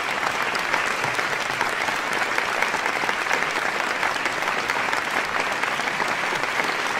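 A large audience applauding: dense, steady clapping that swells up just before and holds at an even level throughout.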